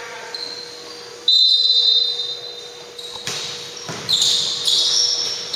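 Basketball game on a hardwood gym court: sneakers squeaking high and sharp about a second in and again around four seconds, with a couple of ball bounces echoing in the hall between them.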